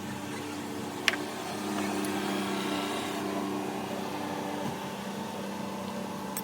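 Steady low mechanical hum of an engine or motor running, with one sharp click about a second in.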